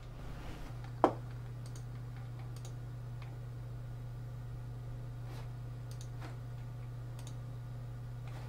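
A sharp click about a second in, then a few fainter scattered clicks, over a steady low hum.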